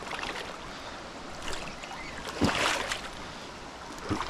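Steady rushing of a fast mountain river, with a brief louder swell of noise about two and a half seconds in.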